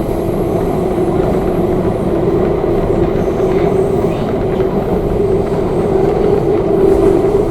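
MTR K-Train running at speed through a tunnel: a steady rumble of wheels on rail with a sustained low hum that swells slightly near the end.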